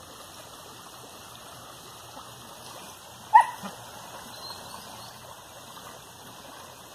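Small stream running steadily over stones, with one short, sharp yelp from a dog about three and a half seconds in.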